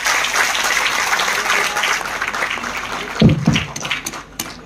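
Audience applauding, the clapping thinning to a few scattered claps near the end. A short, dull low thump about three seconds in.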